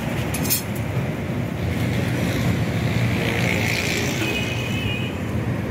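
Steady low rumble of street background noise, with a couple of light clicks about half a second in.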